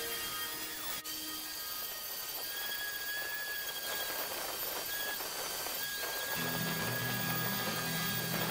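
Random orbital sander running against a hardwood board, its dust port drawing through a shop-vacuum hose: a steady whirring hiss. Music plays underneath, coming up louder from about six seconds in.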